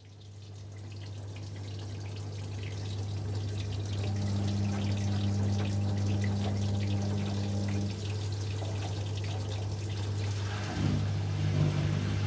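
Whirlpool 5 kg washing machine at the start of its final spin: a steady motor hum with water trickling and draining. A second, higher tone joins for a few seconds in the middle, and the machine's sound shifts about eleven seconds in.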